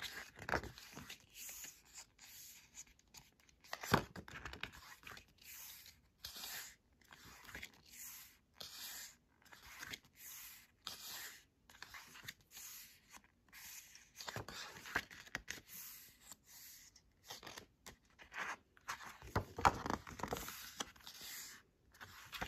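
Pages of a CD album's photobook being turned one by one: paper rustling and sliding in short bursts with pauses between, a little louder about four seconds in and again near the end.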